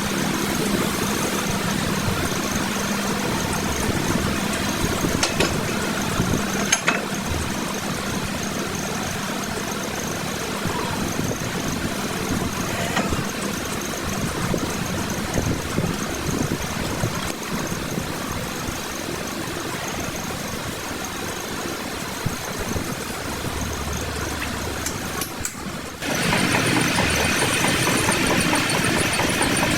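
Metal lathe running steadily while it resurfaces a flywheel. About 26 seconds in the sound cuts abruptly to a louder, steady machine running.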